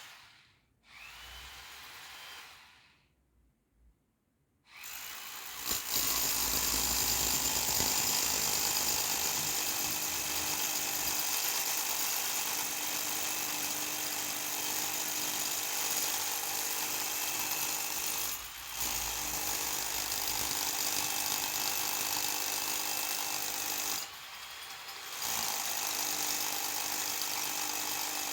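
Electric drill boring into a concrete wall: a couple of short bursts at first, then a long steady run of more than twenty seconds, easing off briefly about midway and again for about a second near the end.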